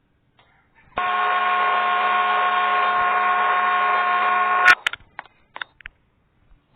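A loud, steady, horn-like buzzing tone starts about a second in, holds for nearly four seconds and cuts off suddenly with a click, followed by a few faint short clicks.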